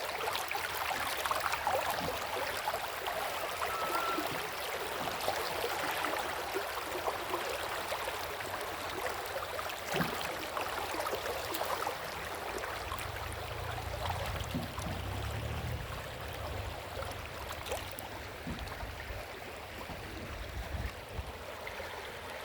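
River water flowing steadily over stones, a continuous rush with many small gurgles and splashes. A low rumble rises under it for a few seconds past the middle.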